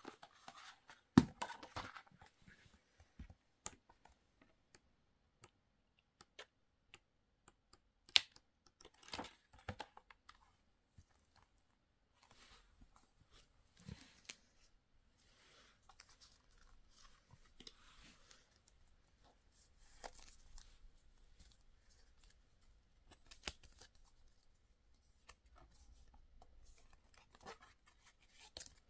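Paper being handled: the glossy pages of an album photobook turning and a folded paper insert being unfolded, with soft rustling and scattered sharp taps and clicks, the loudest about a second in and about eight seconds in.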